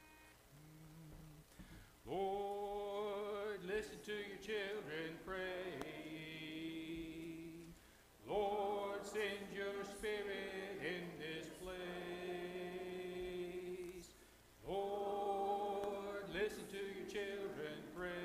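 A congregation singing a slow hymn a cappella, with no instruments, led by a man's voice. After a quiet first couple of seconds it comes in three long phrases with brief breaths between them.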